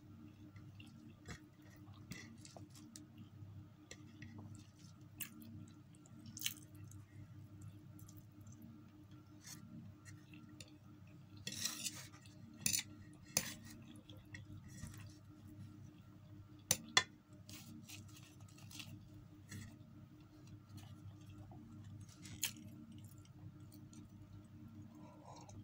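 Close-up eating sounds: chewing with scattered sharp clicks and clinks of a plate and cutlery, a quick cluster of them about halfway through and two loud clinks a few seconds later, over a steady low hum.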